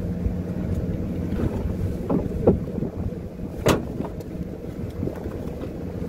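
Fishing boat's engine running steadily with a low hum, and a few short knocks, the loudest about three and a half seconds in.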